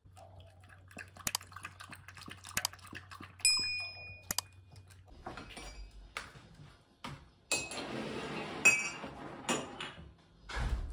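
Dishes and utensils being handled: scattered clinks and knocks, with one struck piece ringing for about a second, three and a half seconds in. Near the end a rushing hiss lasts about a second, followed by more knocks.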